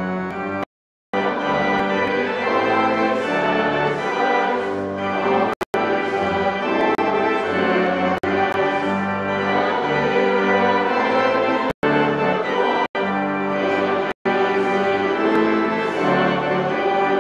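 Organ music: slow, sustained chords held and changed in turn. The sound drops out for a moment about a second in and in a few brief gaps later.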